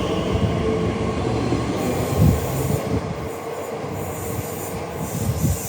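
A train running on the rails: rumbling wheel noise with repeated low thumps and a steady whine, easing slightly toward the end.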